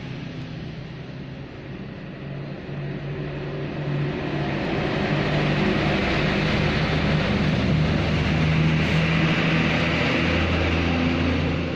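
A motorcycle engine running steadily with a low hum, getting louder about four seconds in and staying up.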